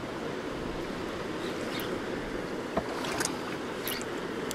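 Steady wash of sea water and wind around a small fishing boat, with a few faint clicks in the second half.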